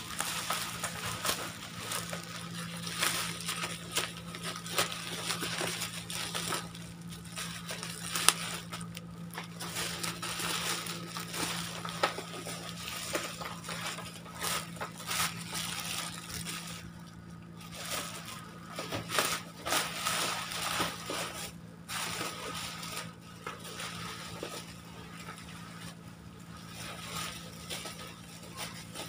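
Black bubble-wrap and plastic packaging crinkling and rustling irregularly as it is handled and pulled open, over a low steady hum.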